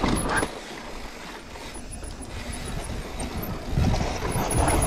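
Riding noise of a mountain bike rolling down sandstone slickrock: a rough rumble of the tyres on rock mixed with wind on the camera microphone, growing louder about four seconds in as the bike picks up speed.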